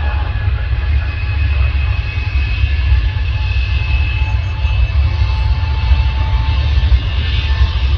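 Boeing 787's Rolls-Royce Trent 1000 jet engines at takeoff power: a loud, steady low rumble with several high steady whines over it.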